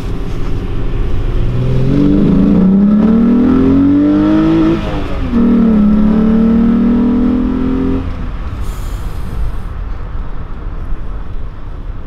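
VR6 engine of a VW Golf Cabrio accelerating hard through the gears: the revs climb for about three seconds, dip at a gear change about five seconds in, climb again in the next gear, then fall away as the throttle is lifted about eight seconds in.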